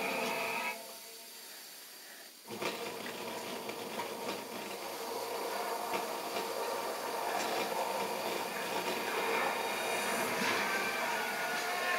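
Underwater-scene soundtrack playing through a television speaker: a steady rushing hiss with faint crackles. It cuts in about two and a half seconds in, after a short quieter lull, and slowly grows louder.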